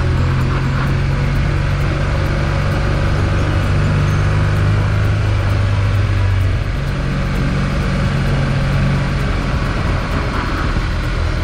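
Motorcycle engine running at a steady road speed on a gravel track, with wind and tyre noise. The engine note changes about two-thirds of the way through, with a brief dip in loudness, as with a change of throttle or gear.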